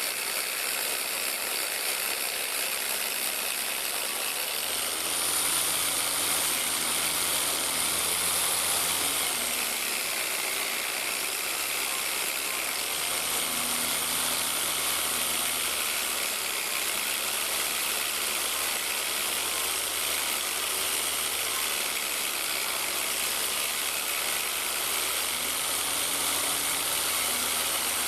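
Electric power tool running steadily on metal, cleaning down a lamp post. At times its motor whine rises and falls as the load changes.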